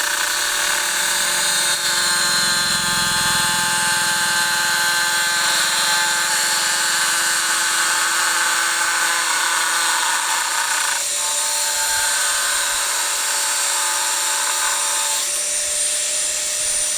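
Electric power tool running steadily with a continuous high whine, its tone shifting about eleven seconds in and again near the end.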